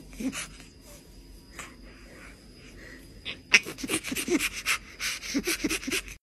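Chimpanzee laughing in rapid breathy pants, mixed with a woman's laughter. It is quieter in the middle, and a loud run of laughter begins about three and a half seconds in.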